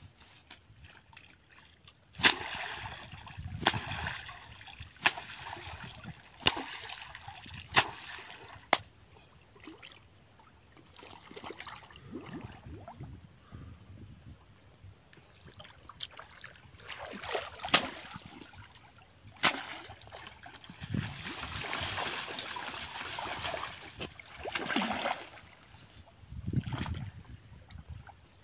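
River water splashing and sloshing around a person wading waist-deep and pulling at roots and branches, with sharp slaps and knocks scattered through it and a longer burst of splashing near the end.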